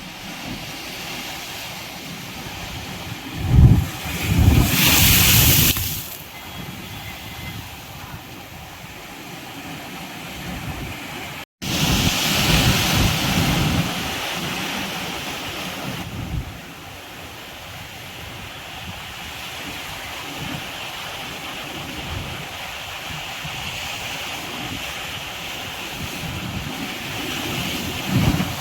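Sea waves breaking and washing up a beach, in several loud surges between steadier hiss, with low gusts of wind buffeting the microphone. The sound cuts out for an instant about a third of the way through.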